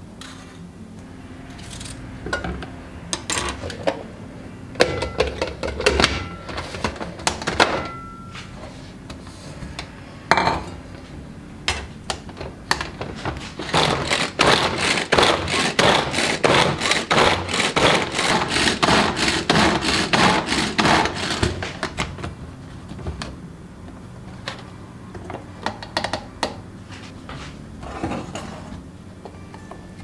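Pull-cord hand food chopper chopping tomatoes: a fast, even run of rattling strokes for about eight seconds in the middle as the blades spin in the plastic bowl. Before and after it, scattered knocks of tomato pieces dropped into the bowl and the plastic lid being handled.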